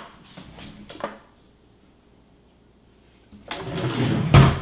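Faint scraping and light knocks of a spatula working hummus in a small food-processor bowl, then a short quiet, then kitchen clatter with a sharp knock near the end.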